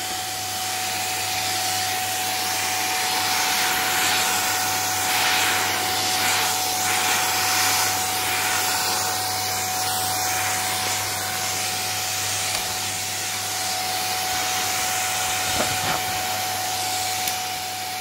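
Vacuum cleaner running steadily with a dusting brush on its wand: a rushing air noise with a steady motor whine, plus a few faint knocks near the end.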